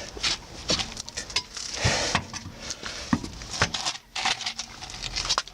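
Front ball joint on a Renault Scénic II squeaking in short, irregular creaks about every half second to a second as the suspension and steering move. This is the very loud squeak of a dry ball joint.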